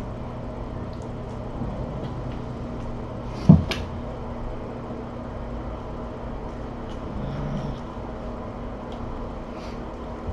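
A steady low hum, with one sharp thump about three and a half seconds in and a few faint light taps.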